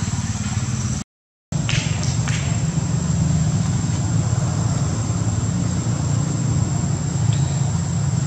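A steady low engine hum with a thin, high steady whine over it. The sound cuts out completely for about half a second, about a second in, then resumes unchanged.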